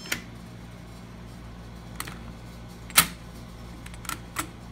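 Five sharp clicks from a brass Schlage Key and Keyless electronic door lock's deadbolt and knob being worked by hand just after it is unlocked by its keypad code. The loudest click comes about three seconds in.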